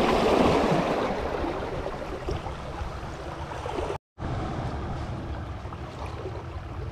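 Small waves washing and splashing against the boulders of a rock breakwater. The sound is loudest in the first second and then settles to a steady wash. It breaks off into silence for a moment about four seconds in.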